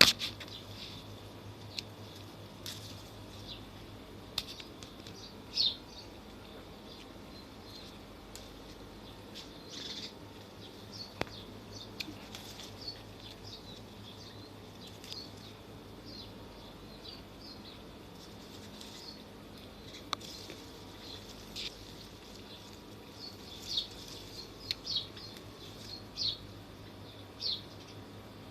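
Small birds chirping in short, scattered calls that come thicker near the end, over a low steady background hum. A single sharp knock comes right at the start.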